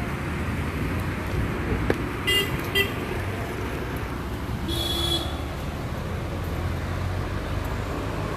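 Road traffic running steadily, with vehicle horns: two short toots about two seconds in, then a longer one about five seconds in.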